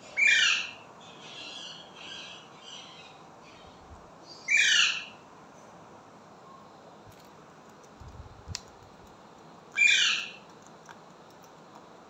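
Indian ringneck parakeet giving three loud calls, about four to five seconds apart, each about half a second long and falling in pitch, with softer chattering after the first. A light tap comes between the second and third calls.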